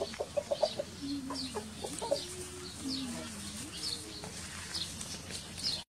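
Chickens clucking: a quick run of short clucks in the first second, then a long low wavering call lasting about three seconds, over faint high chirps repeating about twice a second.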